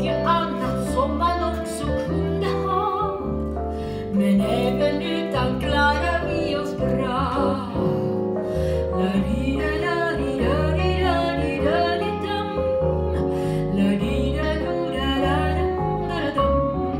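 Music: a song, a voice singing over an instrumental backing with bass notes that change every second or two.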